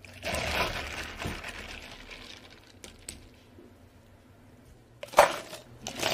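Taro milk tea poured from a plastic pitcher over ice cubes in a plastic cup. About five seconds in, a sharp clatter of ice cubes tipped from a metal scoop into a cup.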